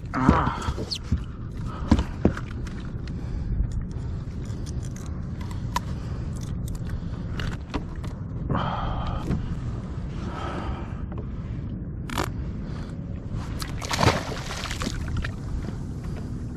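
Steady low wind and water noise from a kayak on open ocean, with scattered clicks and knocks. A few brief louder rushes of noise come midway and near the end.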